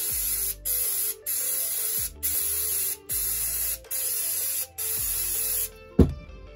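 Aerosol brake cleaner spraying in about seven short bursts of hiss, each under a second, to wash the black gunk off the dismantled head of a nail gun. The spraying stops near the end, followed by one sharp knock.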